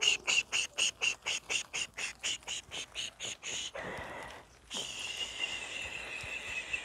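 Animal calls: a rapid series of short high chirps, about five a second, for nearly four seconds, then after a short pause a steady high trill.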